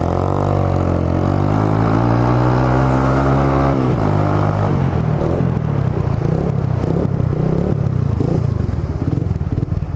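Suzuki GSR 150i's single-cylinder engine running through a Roncar SS oval aftermarket exhaust while riding. It holds a steady note for about four seconds, then the note breaks off and goes on unevenly, rising and falling.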